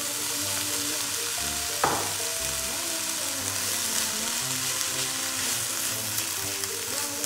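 Textured soy, carrot and onion frying in a pan with a steady sizzle as soy sauce is poured in and the mix is stirred with a wooden spoon. One sharp knock about two seconds in.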